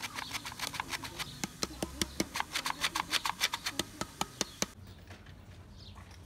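Plastic flour sifter clicking quickly as it is worked over a metal bowl. The clicks stop about three-quarters of the way through.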